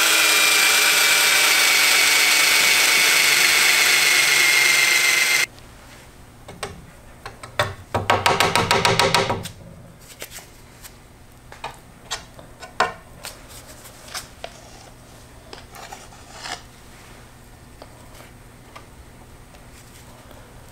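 Cordless drill running at full speed for about five seconds, its whine sagging slightly in pitch as it bores into a disc, then cutting off suddenly. About two seconds later there is a short, rapid rattling burst. After that come faint light clicks and scraping as epoxy is worked into the rocket's fin fillets.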